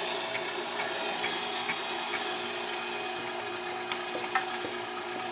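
A 1.5 horsepower electric meat grinder running steadily under load, its auger forcing mutton through the coarse die plate. Light clicks come about every half second in the first half, with one sharper click near the end.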